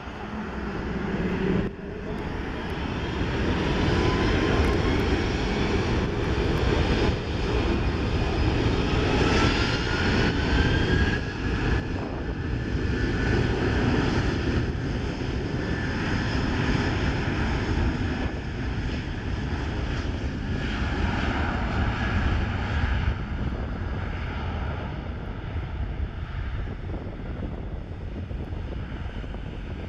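Airbus A330-300 jet airliner's engines at takeoff power as it accelerates down the runway: a loud, steady rumble with whines climbing in pitch over the first ten seconds or so.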